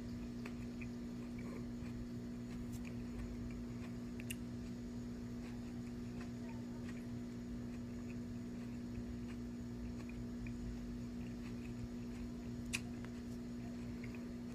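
Faint chewing and mouth clicks from eating a crunchy Berry Amarillo pepper, over a steady low hum. One sharp click stands out near the end.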